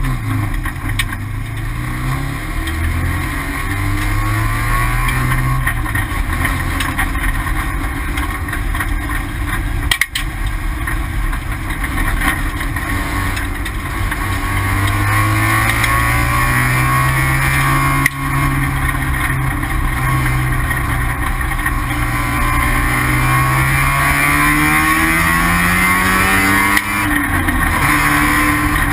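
Mazda RX-7 race car's rotary engine running under load. Its pitch rises and falls with the throttle, with a long climb in pitch through the second half.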